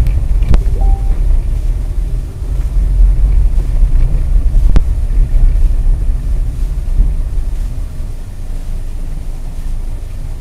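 Steady low rumble of a car's engine and tyres on a snowy road, heard from inside the cabin, with wind noise. Two sharp clicks break through, one just after the start and one about five seconds in.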